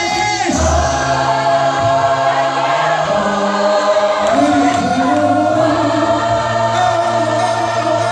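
Gospel choir singing long held notes over sustained instrumental backing.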